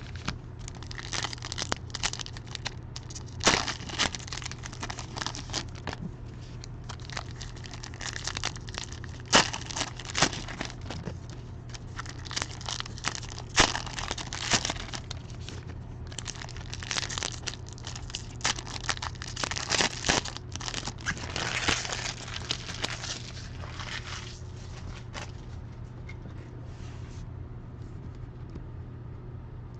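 Trading card box and pack wrappers being torn open and crinkled by hand, in irregular bursts of crackling and rustling that die down after about 25 seconds. A steady low hum runs underneath.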